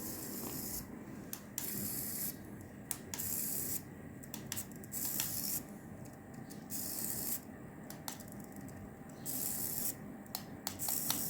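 Small electric motors of a toy battle robot whirring in short on-off bursts of about half a second to a second, several times over, with light plastic clicks in between.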